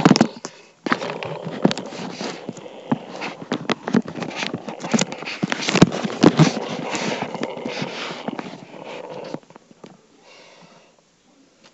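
Handling noise right on the camera's microphone: rubbing and rustling with many sharp knocks and clicks while the lens is covered, dying down about nine and a half seconds in.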